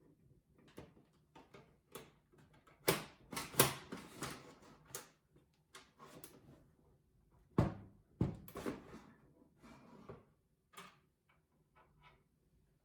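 Clicks, knocks and clatters of desktop computer parts being handled, with the loudest clatters about three seconds in and again near eight seconds.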